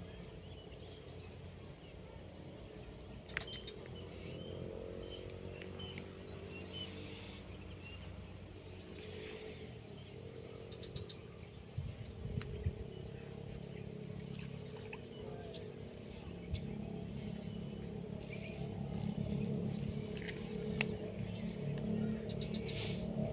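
Outdoor ambience: a low rumble that grows louder toward the end, with scattered short high chirps and a few sharp clicks.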